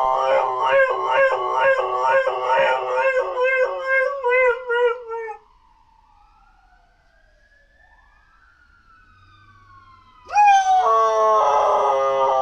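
Dog howling on cue in a wavering, yodelling run of short pulses for about five seconds, then, after a few quiet seconds with faint sliding tones, breaking into a long, steadier howl.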